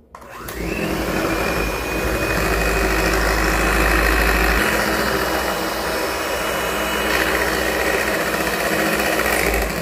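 Electric hand mixer starting up about half a second in with a short rising whine, then running steadily as its beaters whip cream sweetened with icing sugar and vanilla into frosting.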